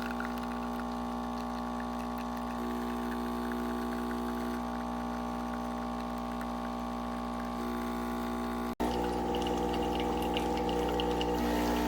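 Gaggia Brera espresso machine's pump running steadily while coffee pours, with a light trickle on top. The sound breaks off abruptly for an instant about nine seconds in and resumes a little louder with a changed pitch.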